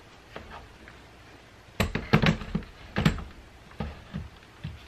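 Cordless DeWalt drill and impact driver knocking against a plywood tool holder as they are set in and shifted: a quick cluster of clunks about two seconds in, another about three seconds in, then a few lighter taps.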